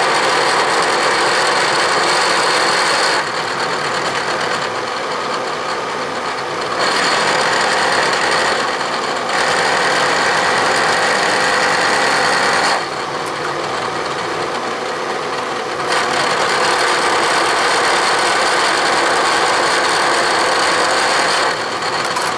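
Vertical milling machine with a three-flute cutter taking a cut across a metal block: a loud, steady cutting noise over the spindle's running. The noise drops back for a few seconds twice, about 3 and 13 seconds in, then picks up again.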